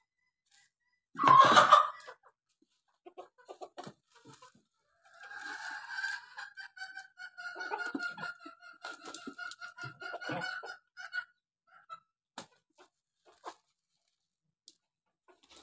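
Chickens calling: one loud short squawk about a second in, then a long drawn-out call from about five to eleven seconds in, with scattered faint clicks around them.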